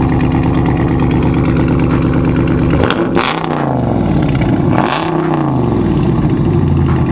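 Car engine running through an aftermarket cat-back exhaust, held steady and then blipped twice, the revs climbing and dropping back each time, with sharp crackles from the exhaust.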